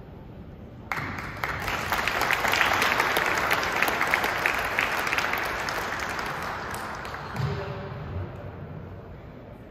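Audience applauding. The clapping breaks out suddenly about a second in, builds, then slowly dies away near the end.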